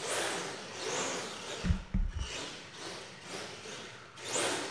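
Brushless-converted HPI Wheely King 4x4 RC monster truck being driven in short throttle bursts: the motor and tyres make a hissing surge that swells and fades several times. A few low thumps come about halfway through.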